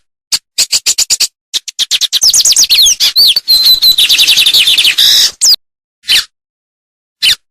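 Songbird song: quick runs of sharp chirps and downward-sliding whistles, with a fast rattling trill through the middle, set apart by sudden silent gaps.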